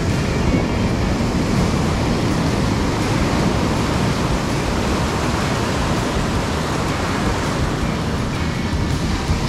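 Ocean surf breaking and washing up the beach in a steady, loud roar, with wind buffeting the microphone.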